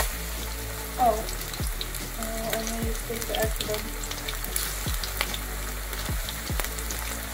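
Battered fish pieces deep-frying in hot oil in a stainless steel saucepan: a steady sizzle full of fine crackles, with a couple of short pitched sounds over it about a second in and around three seconds in.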